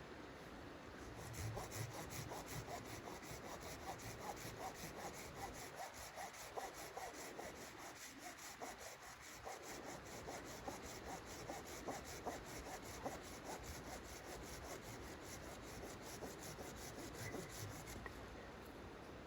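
Hand saw cutting through wood in quick, even back-and-forth strokes that stop shortly before the end.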